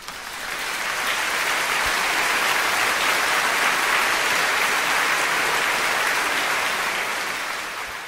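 Audience applauding: a dense, steady clapping that swells in over the first second or so and eases off near the end.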